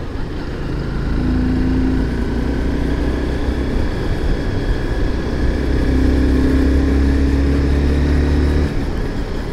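Sport motorcycle engine running at a steady cruising speed, with wind rushing over the rider-mounted microphone. The engine note holds an even pitch and eases off shortly before the end.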